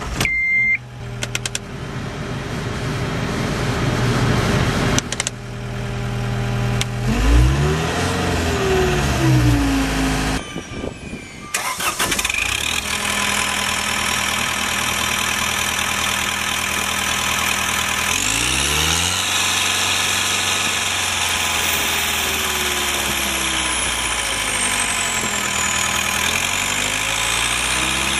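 Diesel engine of a John Deere 319D tracked skid steer starting up after a short beep, then revving up and down and running steadily, its pitch rising and falling a few more times as the throttle changes.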